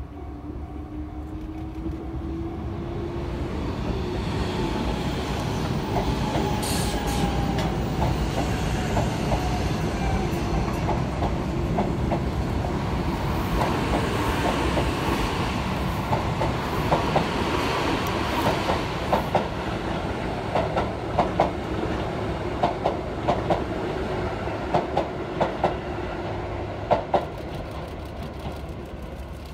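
Sotetsu 12000 series electric train passing close by, with a hum that rises slowly as it draws near. Over the second half its wheels clack many times in quick, uneven runs.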